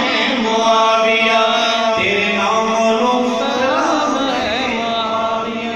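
A man's voice chanting a devotional Urdu nazm, unaccompanied, in long held notes that slide and waver in pitch.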